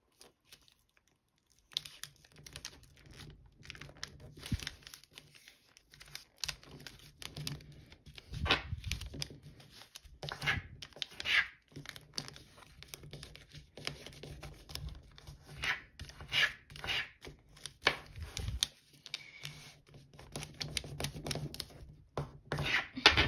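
Metallic foil origami paper crinkling and rustling in irregular bursts as it is folded and creased by hand, starting about two seconds in.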